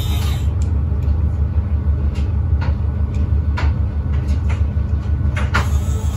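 Small electric motor turning a threaded rod to drive a trombone capacitor's carriage along its steel rail, a steady low drone with a few short sharp clicks or squeaks from the moving carriage.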